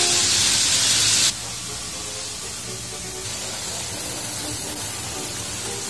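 Märklin model train passing right by the microphone, a loud hissing rush of wheels and motor on the track that cuts off abruptly about a second in. Faint orchestral music and quieter running noise remain.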